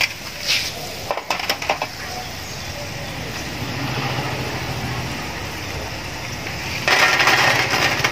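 Potato fries deep-frying in hot palm oil, a steady sizzle, with a few sharp knocks of a utensil against the pan about a second in and a louder rush of noise lasting about a second near the end.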